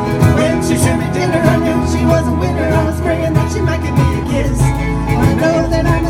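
String band playing a country-bluegrass tune live, with fiddle, plucked strings and a steady bass line.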